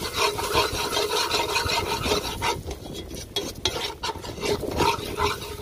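A metal spoon scraping and stirring round a black pot, working curry powder in hot, sizzling oil, with quick repeated strokes against the pot.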